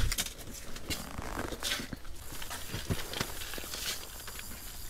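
Scattered light clicks, knocks and rustling from fishing rods, reels and clothing being handled, with no steady rhythm.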